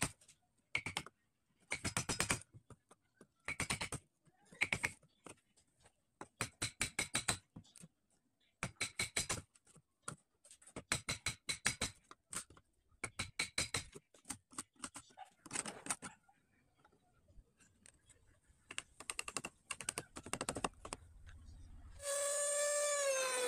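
Steel wood chisel pushed by hand through a channel in a wooden crossbow stock, in short scraping strokes of rapid clicks with pauses between them. Near the end an electric trim router switches on and runs with a loud whine that settles slightly lower in pitch.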